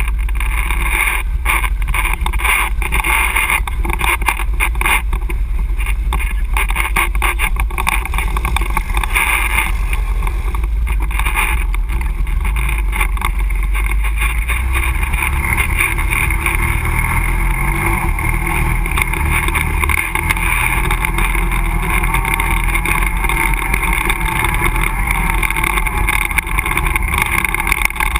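ATV engine running under throttle on a rough trail, with knocks and rattles over bumps and splashing as it drives through mud and standing water. In the second half the ride smooths out and the engine pitch wavers and rises with the throttle.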